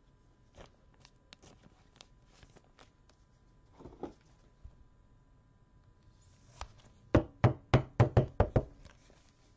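A trading card handled into plastic protectors: faint crinkles and clicks of a soft plastic sleeve, then a quick run of about eight sharp plastic taps and clicks as the card is seated in a rigid top loader near the end.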